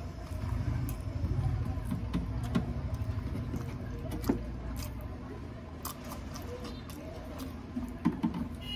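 Close-up chewing and mouth sounds of a person eating a soft samosa pav, with scattered small clicks and smacks over a low steady hum.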